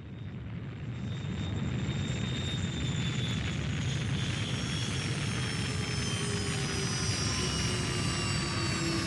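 Science-fiction spaceship landing sound effect: a heavy engine-like rumble swells up over the first two seconds and then holds steady, with several thin whining tones that slowly fall in pitch as the craft descends.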